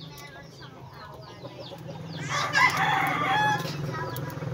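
A rooster crowing once, about two seconds in, the loudest sound here. Before it come short clucks from chickens.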